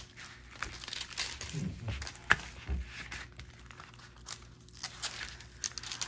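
Diamond painting canvas with its clear plastic cover film crinkling and crackling as it is handled and flattened, with irregular sharp crackles and one louder click a little over two seconds in.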